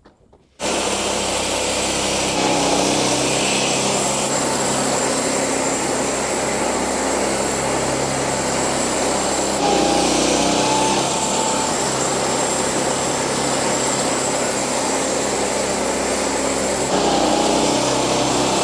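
Wood-Mizer LX50 Start band sawmill running, its engine droning steadily while the band blade saws through a cherry log. The sound starts abruptly about half a second in.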